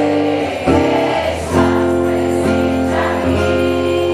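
A slow religious hymn: voices singing long held notes with musical accompaniment.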